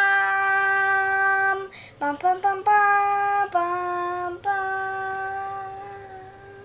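A child singing a wordless fanfare-like tune: a long held note, a quick run of short notes, then held notes ending on a long one that fades out.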